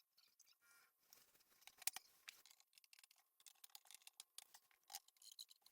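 Faint, scattered small clicks and light taps of handling, with one sharper click about two seconds in.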